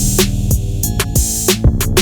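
Background music with a drum-machine beat and pitched instruments.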